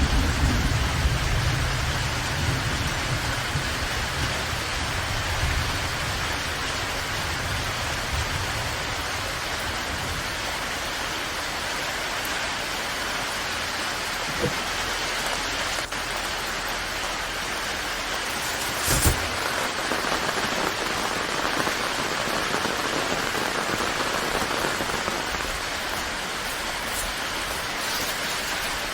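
Steady heavy rain falling, with a low rumble of thunder that fades out over the first eight seconds or so. Two sharp clicks stand out from the rain, the louder one about two-thirds of the way through.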